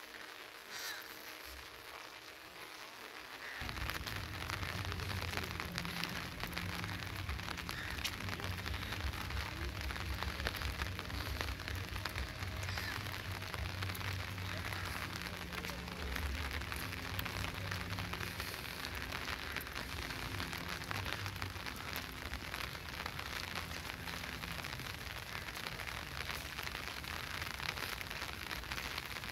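Steady rain falling on wet stone paving, many small drop hits over an even hiss. About three and a half seconds in, a low rumble comes in and carries on under the rain.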